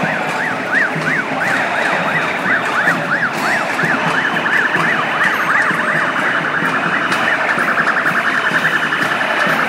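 Police siren wailing in quick up-and-down sweeps, switching about halfway through to a much faster warble, over a steady din of street traffic and crowd noise.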